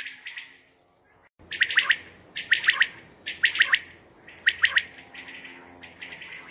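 Common quail calling: repeated phrases of a few sharp, liquid notes in quick succession, the phrases coming about once a second after a brief break about a second in.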